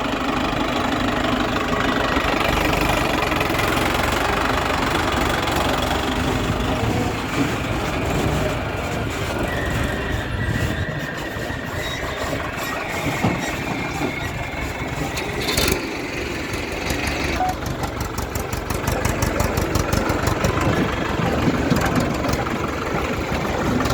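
Heavy diesel machinery running steadily, a backhoe loader and tractors at work. A thin steady whine comes in for a stretch in the middle, and a fast even ticking runs through the last several seconds.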